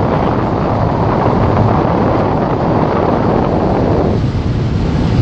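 Kia Sportage heard from inside the cabin while accelerating at high speed: a steady engine drone under loud wind and road rush. About four seconds in, the rush thins out while the low drone carries on.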